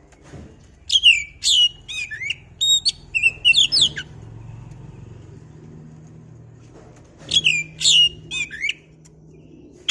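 Oriental magpie-robin (kacer) song: rapid phrases of loud whistles and sweeping notes for about three seconds, a pause, then another short burst a few seconds later.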